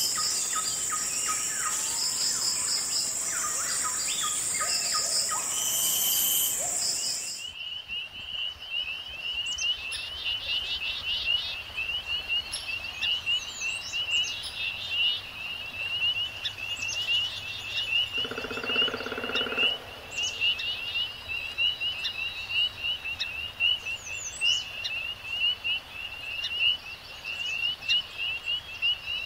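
Nature soundscape recording of an insect and bird chorus: a dense wall of high, steady insect and bird calls gives way abruptly, about seven seconds in, to a steady pulsing insect trill with scattered bird chirps, and a brief lower buzzy animal call about two-thirds of the way through.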